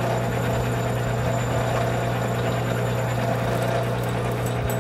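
Metal lathe running with a steady hum as a cutting tool turns a spinning cast iron bar.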